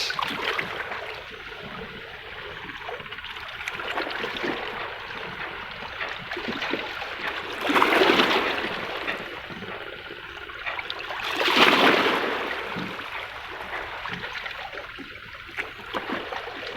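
Seawater washing and trickling among breakwater rocks, with two larger waves surging in about eight and twelve seconds in.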